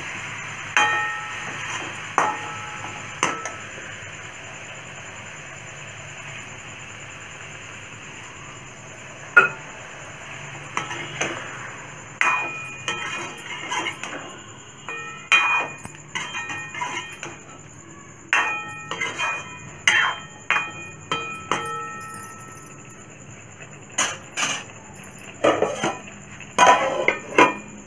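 Metal spatula knocking and scraping against an aluminium kadai while chicken is stirred and fried, each knock leaving a short metallic ring. The knocks come at irregular intervals, more often in the second half, over a steady low hiss of frying.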